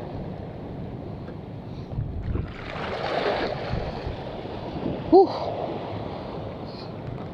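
Wind buffeting the microphone over the wash of waves at the shore, swelling around three seconds in, with one short falling voice-like sound about five seconds in.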